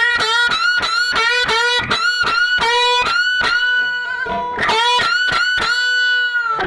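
Music clip: a plucked guitar riff of quick, repeated, sharply picked notes, mostly on one pitch. It ends on a longer held note about five seconds in.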